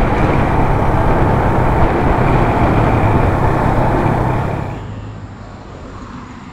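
Suzuki GS150 single-cylinder four-stroke engine running while riding, with road noise. About five seconds in it cuts off abruptly to a much quieter background.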